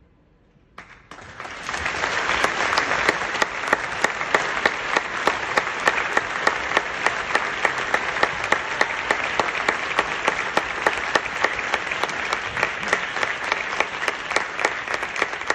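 Theatre audience applauding at the end of an opera aria. The applause starts about a second in after a brief hush and then holds steady, with a few sharp nearby claps standing out.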